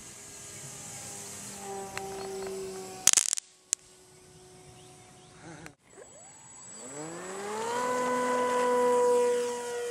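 Electric motor and propeller of a Parkzone T-28 Trojan RC plane whining. A faint steady whine at first, a sharp click about three seconds in, then from about seven seconds the whine rises steeply in pitch as the throttle comes up for a takeoff run, holding at full power and growing louder.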